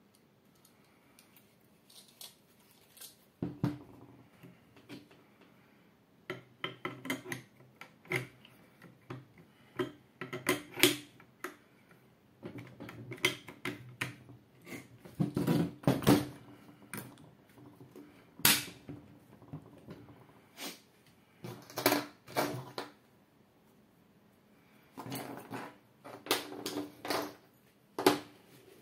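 Metal and wooden parts of a Norinco Type 56 AK rifle knocking and clicking as the rifle is handled and parts are fitted back onto it on a table. The sharp clacks begin a few seconds in and come in irregular clusters with short pauses between.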